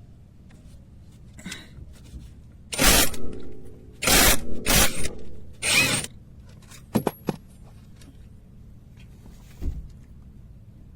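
Cordless impact wrench run in three short bursts of about half a second to a second each, followed by a few brief clicks and knocks.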